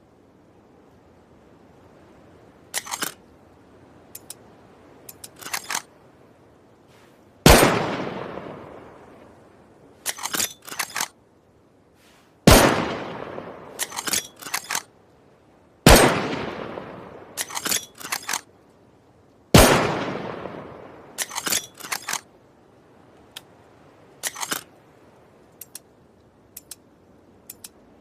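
Bolt-action rifle fired four times, each loud shot followed by a long fading echo, with the bolt worked between shots in quick clusters of metallic clicks. More bolt clicks come before the first shot and after the last.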